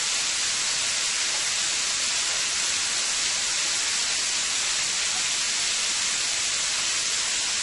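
Thin marinated steaks frying in a skillet: a steady, unbroken sizzle.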